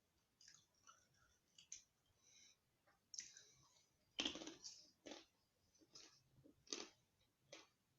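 Faint, irregular clicks and short scratchy noises, about a dozen of them at uneven spacing, the loudest about four seconds in.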